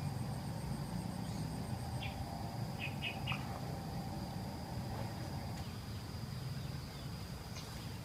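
Outdoor ambience dominated by insects: a steady high-pitched drone, with a faster pulsing trill in the first couple of seconds. A few short chirps come about three seconds in, over a low background rumble.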